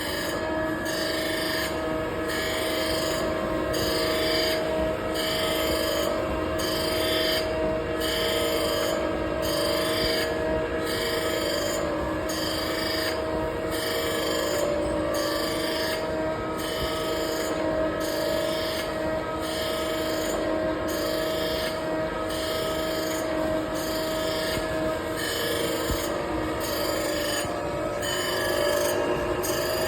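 Surface grinder running: a steady motor hum under a grinding hiss that swells and fades about once a second, as the reciprocating table carries the workpiece back and forth under the wheel.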